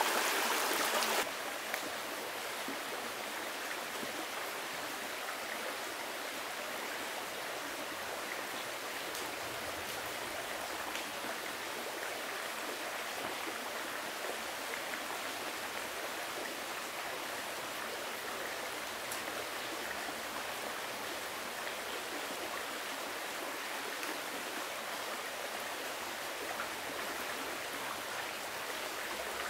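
Forest stream running steadily. A louder rush of water cuts off abruptly about a second in.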